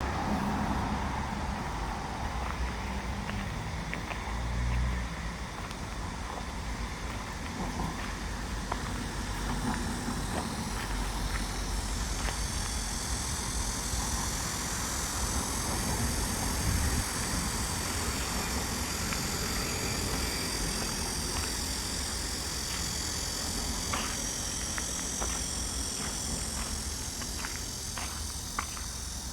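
Outdoor ambience of a park walkway: a steady low rumble of distant road traffic, joined from about a third of the way in by insects chirring steadily on a high pitch, with a run of light ticks near the end.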